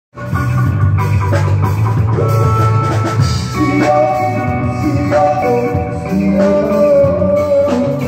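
Reggae band playing: a heavy bass line under sustained melody notes, with drum-kit hits keeping the beat.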